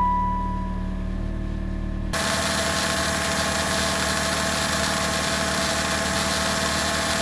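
A Saturn 1.9-litre twin-cam four-cylinder engine running at idle. For the first two seconds it is a low hum heard from inside the cabin, with a steady high tone that stops just after the start. Then it is heard close up under the open hood, with a steady grinding noise that is a sign of something wrong.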